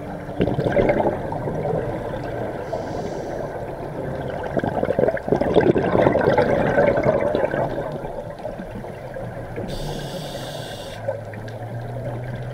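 Scuba diver's breathing through the regulator, heard underwater: two rushes of exhaled bubbles gurgling upward, each with a short high hiss after it.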